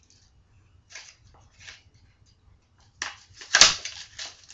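Handling of trading cards and a foil booster pack: a few soft rustles, then a louder crinkling burst about three seconds in with one sharp click in it.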